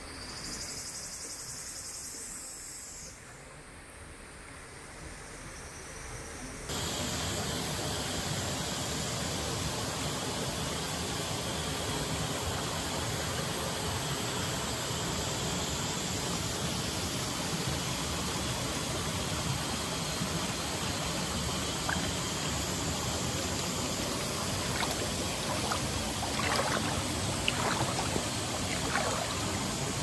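A thin high hiss for the first few seconds, then, from about seven seconds in, the steady rush of a mountain stream flowing over rocks, with a few faint splashes or clicks near the end.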